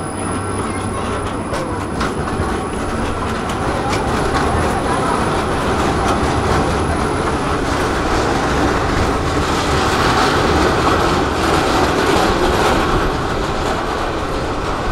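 Škoda 15T low-floor tram pulling away from the stop past the camera, its wheels rumbling and clacking over street-running rails with a little wheel squeal. The rumble grows louder through the middle and eases near the end.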